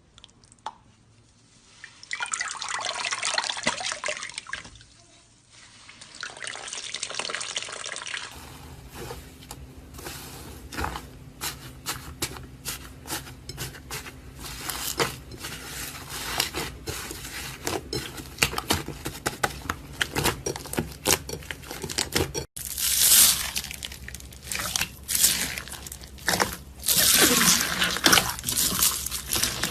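Wet slime being squished, poked and stretched by hand, giving many small sticky clicks, pops and squelches. The sound changes abruptly twice, as one clip gives way to the next.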